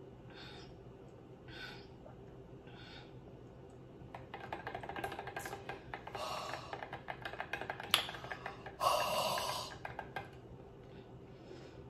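A person drawing a thick frozen fruit smoothie up a straw in short, evenly spaced sucks, then rapid clicking and scraping as the straw is worked around in the blender jar, with a loud breathy gasp about nine seconds in.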